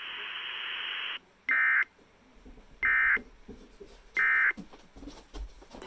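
Emergency Alert System end-of-message signal: three short bursts of buzzy digital data tones, about 1.3 seconds apart, after a second of steady radio hiss that cuts off.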